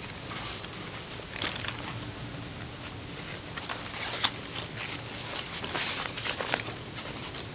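Nylon seat fabric of a folding camp chair rustling and flapping as it is worked over the chair's pole frame, with dry leaves crackling under it and a sharp click about four seconds in.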